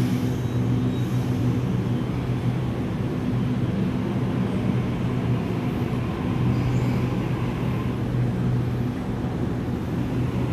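Sydney Trains double-deck electric train pulling out of an underground platform: a steady low hum from its motors, with wheels running on the rails as the cars move past.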